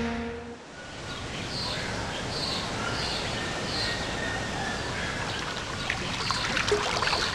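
An engine tone fades out in the first half-second, giving way to a steady rush of flowing water with short high bird calls repeating at even spacing, and a few sharp clicks near the end.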